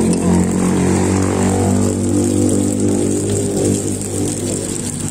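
A motor vehicle engine running close by with a steady hum, its pitch wavering slightly about a second and a half in.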